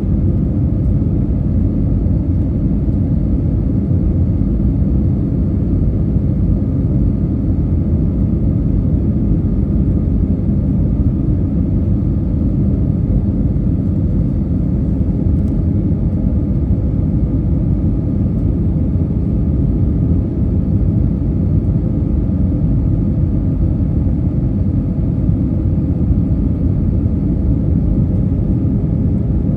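Steady cabin noise inside an Airbus A320 on approach: a constant low drone of engines and rushing airflow with a faint steady hum above it.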